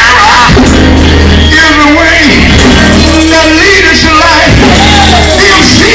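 Loud live church praise music: voices singing over a band with a strong, steady low bass.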